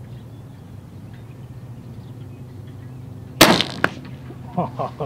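Cothran .457 big-bore high-pressure-air pistol firing one 254-grain bullet: a single loud, sharp report about three and a half seconds in. Under half a second later comes a second, fainter crack as the bullet strikes the can target at 50 yards. A low steady hum runs underneath.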